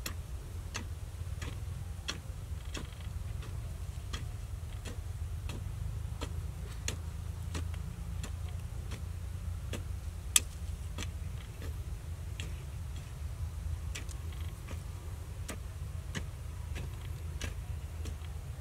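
Short-handled hoe chopping into dry, hard soil in regular strokes, about one and a half a second, with one sharper strike about ten seconds in. A steady low rumble runs underneath.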